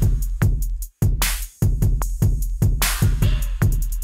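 Background music with a steady electronic drum beat, about two to three low kicks a second, with quick ticking on top.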